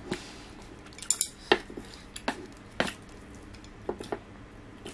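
Wooden chopsticks clicking against a serving tray and each other as noodles are picked up: about seven sharp, separate clicks, the loudest about a second and a half in.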